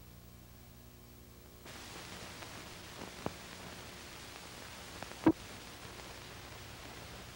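Surface noise of an old film soundtrack over the countdown leader: steady hiss with a low hum, the hiss stepping up under two seconds in, and two short pops from the film, the louder about five seconds in.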